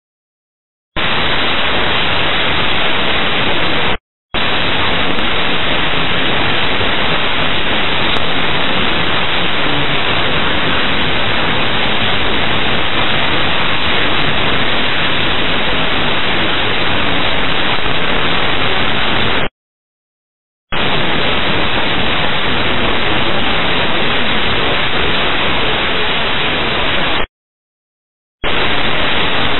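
Loud, even radio static hiss on an air traffic control frequency recording, with no voice in it. It switches on abruptly about a second in and cuts out and back three times, as the receiver opens and closes on a transmission.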